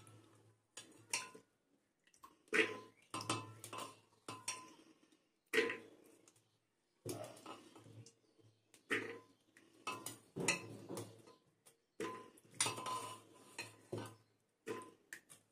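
Handfuls of wet, soaked chickpeas dropped into a metal pressure cooker, clattering on the metal in irregular bursts.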